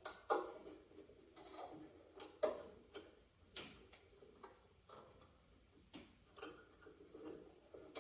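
Irregular clicks and light knocks of a hand clamp being fitted and tightened onto the cedar strips at the end of a strip-built kayak hull, with soft handling noise between them.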